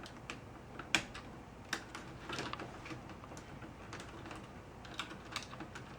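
Irregular plastic clicks and clacks from mechanical keyboard keycaps and a spacebar being handled, fitted and pressed.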